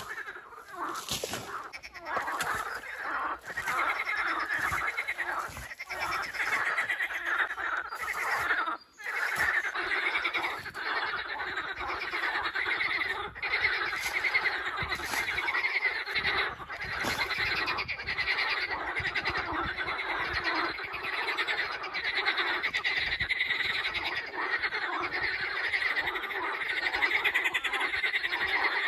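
A dense chorus of frogs calling steadily from the swamp, with an occasional scrape and thud of a shovel digging into soil.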